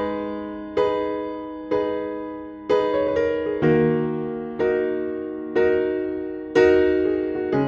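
Background music: a slow piano tune, chords struck about once a second, each left to ring and fade before the next.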